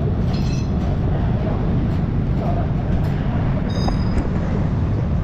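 Steady low rumble of garage background noise, with two brief metallic clinks: one about half a second in and one near four seconds in.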